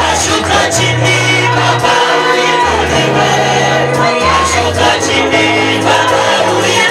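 Live gospel praise-and-worship music: a group of voices singing over a steady band with a bass line that changes note about once a second.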